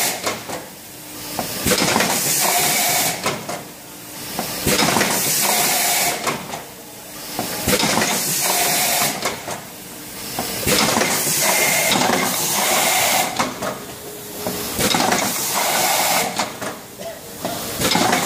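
Automatic tube filling and sealing machine running through its cycle: bursts of compressed-air hissing with clicks and metallic clatter, repeating about every two seconds.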